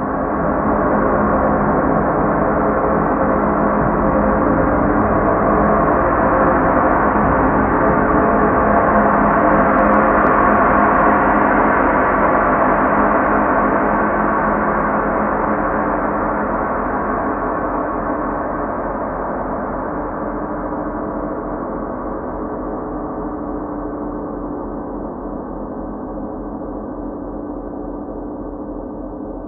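A recorded gong sounding as a sustained wash of many overlapping tones. It swells to its loudest about halfway through, then slowly fades.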